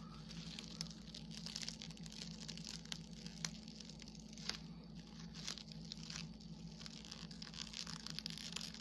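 Plastic cling film faintly crinkling and crackling as fingertips pick and peel it off a glue-coated diamond painting canvas, in small irregular clicks. The film is stuck fast in the glue and tearing instead of releasing.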